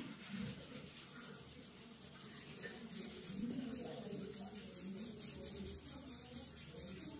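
Hands rubbing and massaging over skin and clothing: a faint, scratchy rubbing that goes on unevenly.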